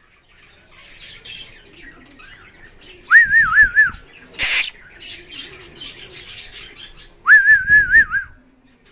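A high warbling whistle sounds twice, about four seconds apart. Each lasts under a second, its pitch dipping and rising four or five times in quick succession. Faint rustling lies between the whistles.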